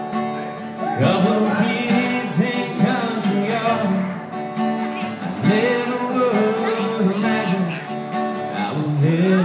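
A man singing a slow song, accompanied by a strummed acoustic guitar.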